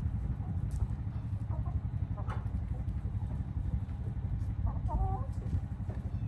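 Chickens clucking a few times, the clearest call about five seconds in, over a steady low rumble.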